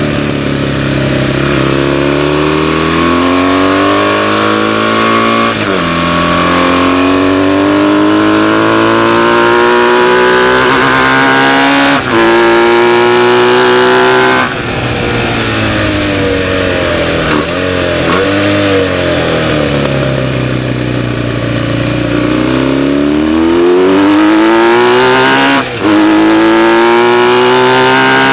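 BMW flat-twin racing motorcycle engine heard from on board, accelerating hard, its pitch climbing and then dropping sharply at each upshift, about 6 and 12 seconds in. Around the middle it backs off and drops through the gears, then pulls hard again with quick upshifts near the end, over a steady rush of wind.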